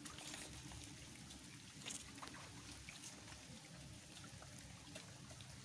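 Faint wet squelching and shuffling of steps in soft mud, with a few soft clicks.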